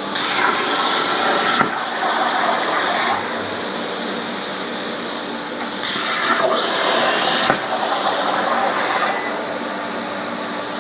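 An Everlast plasma cutter's torch cutting steel sheet on a Langmuir Crossfire Pro CNC plasma table: a loud, steady hiss of the arc and compressed air, starting suddenly, with a few brief shifts and clicks along the way.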